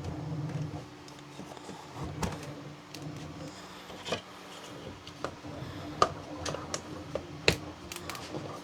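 Scattered sharp clicks and knocks of hard plastic being handled, as filament spools are fitted onto new rolls, over a steady low hum.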